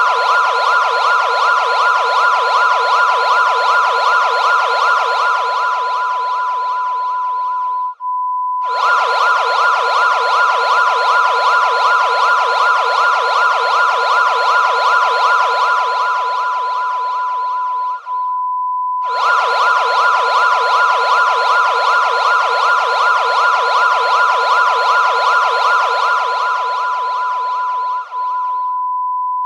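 Mock Emergency Alert System alarm, loud: a steady tone with a rapidly wavering, siren-like tone layered over it. The wavering part breaks off briefly three times, about ten seconds apart, while the steady tone carries on through the breaks.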